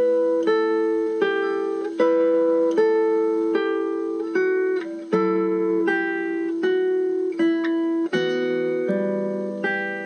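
Background music: an acoustic guitar plays slow, evenly paced picked notes and chords, a new one about every three-quarters of a second, each ringing on until the next.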